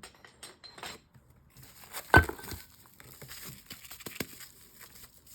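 Stone slabs and flakes clinking together as they are handled, with one sharp, ringing clink about two seconds in, over the crinkle of packing material.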